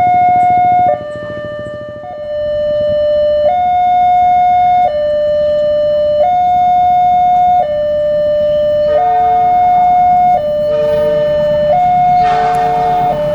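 Railway level-crossing warning siren sounding a steady two-tone hi-lo wail, each tone held about a second and a half, signalling that a train is coming and the crossing is closed. Near the end the noise of the approaching train builds under it.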